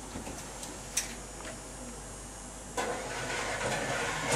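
Kitchen wall oven being opened to take a cake tin: a sharp click about a second in, then from near three seconds a steady mechanical whirring hum from the open oven, with a knock near the end as the tin goes in.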